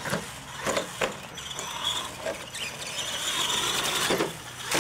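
Radio-controlled monster truck driving flat out over rough dirt: its drivetrain whines high and steady, swelling through the middle, with several sharp knocks as the truck bounces over the bumps.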